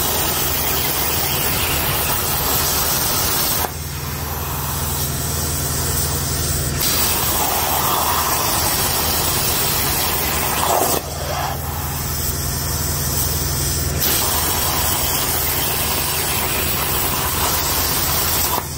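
Plasma torch of an Everlast 82i plasma cutter cutting through metal plate on a Langmuir Crossfire XR CNC table: a loud, steady hissing rush of the arc and its air. The sound drops suddenly about four seconds in and again about eleven seconds in, then builds back up.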